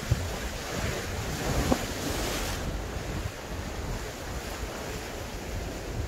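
Strong wind buffeting the microphone over sea surf washing against a rocky shore. The wash swells up from about one to two and a half seconds in, with a brief sharp knock partway through.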